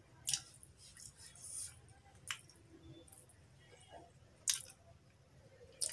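A person chewing soft food with the mouth closed, close to the microphone: four sharp, wet mouth smacks spaced a second or two apart, with softer squishy chewing sounds between them.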